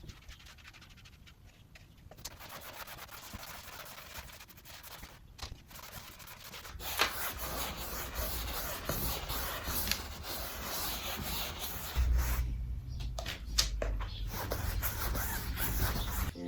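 Gesso primer being brushed onto a stretched canvas: irregular rubbing and scraping strokes that grow louder about seven seconds in, with a low rumble joining in the last few seconds.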